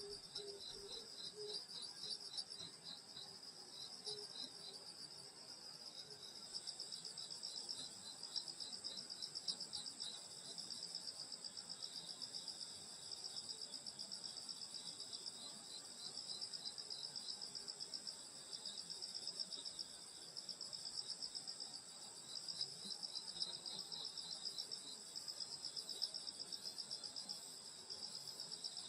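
Night chorus of crickets and other grass insects, several high trilling songs overlapping steadily, with a lower pulsed call in the first second or so.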